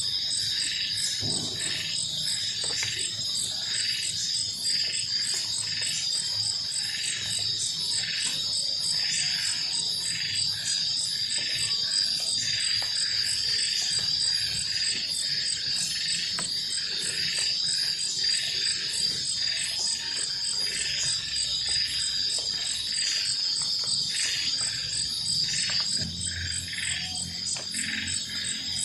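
Night insect chorus of crickets: a continuous high shrill trill with rapid pulsed chirps over it, repeating about twice a second.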